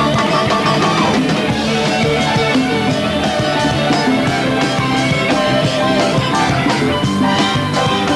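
Live rock band playing an instrumental passage: electric guitar lead over a drum kit keeping a steady beat, with bass and keyboards. A high guitar note is held through the first second.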